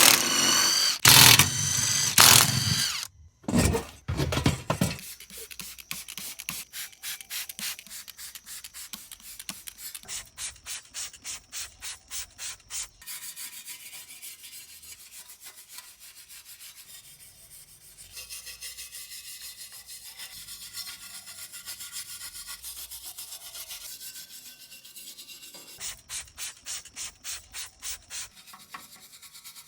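Rapid back-and-forth rubbing strokes on the rusted metal frame of a car's center console, several strokes a second, as rust is worked off. A loud pitched sound opens it for about the first three seconds.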